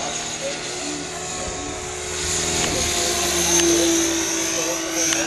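Electric radio-controlled model helicopter flying, its motor and rotor giving a steady whine with a high-pitched edge that grows louder about two seconds in.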